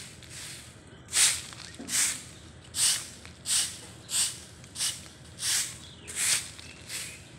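A long-handled broom sweeping a rough stone-aggregate pavement: a steady rhythm of hissing swishes, about one stroke every two-thirds of a second, with the strokes growing stronger about a second in.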